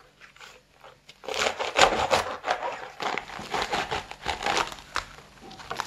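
Serrated knife sawing through a crisp romaine lettuce heart, the leaves crunching and crackling with each stroke, starting about a second in.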